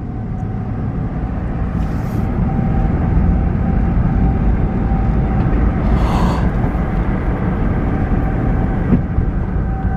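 Low, steady rumble of a moving vehicle, slowly building in loudness, with the faint steady tone of a distant outdoor warning siren sounding under it.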